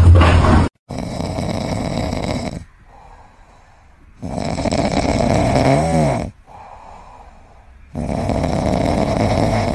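A kitten snoring: three long snores of about two seconds each, with quieter breaths between, the middle one ending in a brief wavering whistle. A short loud sound cuts off abruptly within the first second.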